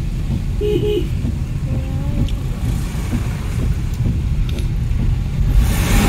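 Steady low rumble of a car driving on a wet road, heard from inside the cabin. A louder rushing hiss comes near the end.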